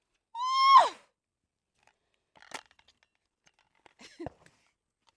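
A short, high-pitched vocal whoop that rises briefly and then drops sharply, followed by a few faint clicks.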